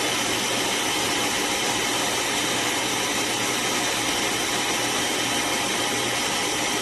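Shark Clean & Empty BU3521 auto-empty base running steadily, its suction motor drawing debris out of the stick vacuum's dust cup into the base. A loud, even whooshing with a steady whine over it.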